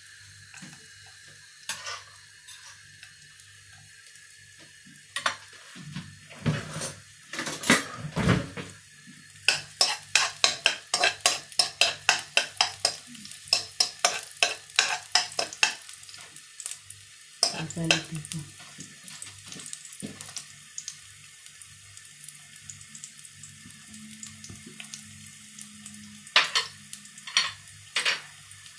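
A metal spoon scraping and tapping against a coated wok while stirring chopped garlic frying in oil, over a faint steady sizzle. About a third of the way in it becomes a quick run of clicks, about four a second for several seconds, with a few more knocks near the end.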